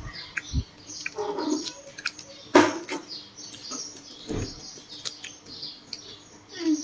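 Crisp grilled water snake being torn apart and chewed: scattered sharp cracks and crunches, the loudest about two and a half seconds in, over a run of short high chirps.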